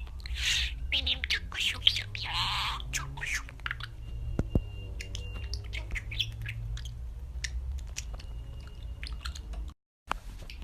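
Budgerigar chattering: quick clicks and short chirps, busiest in the first few seconds, then sparser with a couple of short thin whistles, over a low steady hum. The sound breaks off for a moment near the end.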